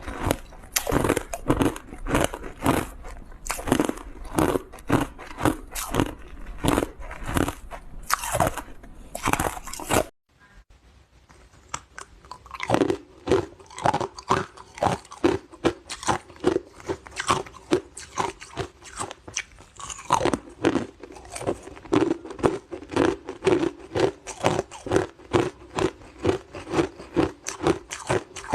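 Close-up crunching and chewing of hard frozen matcha ice, rapid sharp bites one after another. About ten seconds in the sound cuts off abruptly, and after a short quiet gap the crunching starts again, sounding a little different.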